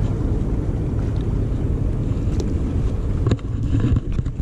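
Wind buffeting an action camera's microphone: a steady low rumble, with a couple of short handling clicks near the end.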